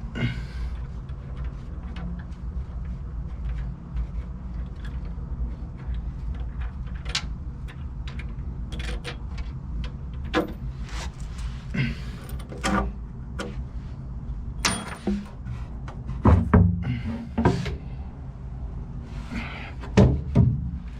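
Hand work on a boat's deck fittings: scattered clicks, clanks and knocks as boards, bolts and washers are handled, with a run of heavier thumps about sixteen seconds in, over a steady low hum.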